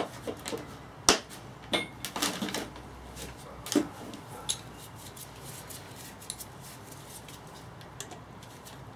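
Small steel bearing-puller ends and rods clicking and clinking as they are handled in a plastic tool case and tried in a gearbox bearing: a cluster of sharp metallic clicks in the first few seconds, then only a few scattered ticks.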